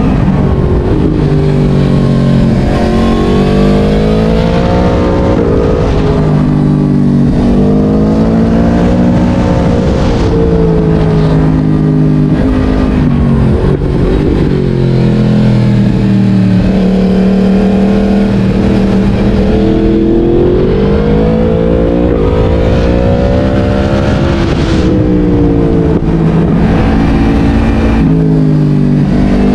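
Yamaha MT-10's crossplane inline-four engine, through a LeoVince decat exhaust, being ridden hard. The engine note climbs in pitch under acceleration and drops back several times as it is shifted up or rolled off, then climbs again.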